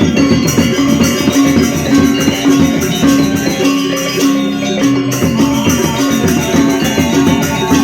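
Balinese gamelan music: metallophones play fast, repeating pitched patterns over percussion, steady throughout.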